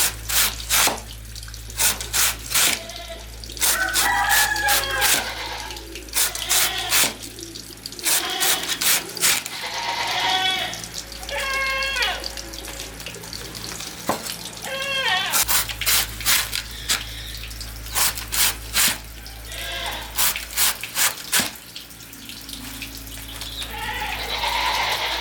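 Goats bleating in several short calls, among repeated sharp knocks that come in quick clusters.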